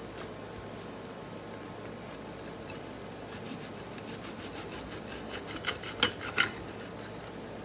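Kitchen knife sawing through a crisp, butter-fried cheese quesadilla on a ceramic plate: a rapid run of rasping strokes starting a couple of seconds in, with a couple of louder clicks about six seconds in.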